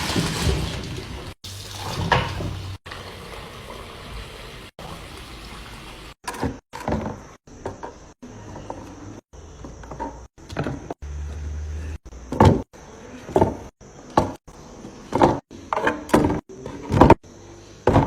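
Fridge-organizing handling sounds in short clips cut off abruptly: liquid running or pouring at first, then from about six seconds a run of short knocks and clatters of containers being set down and drawers or doors moved.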